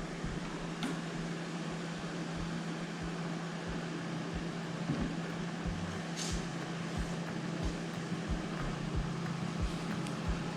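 Steady mechanical hum with a constant low tone under an even wash of noise, with occasional soft low bumps.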